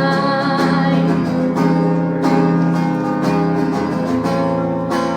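Acoustic guitar strumming chords, an instrumental passage between sung lines of a live song.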